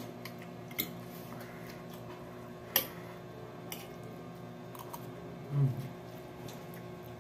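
Spoons and forks clicking against plates while eating: a few sharp clinks, the loudest near three seconds in, over a steady low hum. A short hummed voice sound comes just after five seconds.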